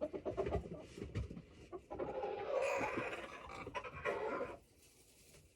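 Dry chicken feed being dumped out of a storage bin: a few knocks and rattles, then a rushing pour lasting about two and a half seconds that cuts off suddenly.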